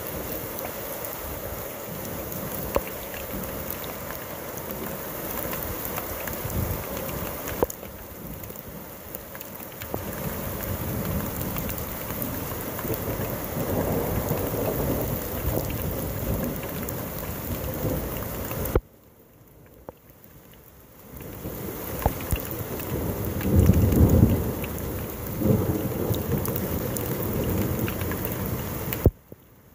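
Heavy rain during a thunderstorm, with thunder rumbling and building to its loudest about three-quarters of the way through. Scattered sharp taps sound over the rain. The sound drops away abruptly for a couple of seconds about two-thirds in and again near the end.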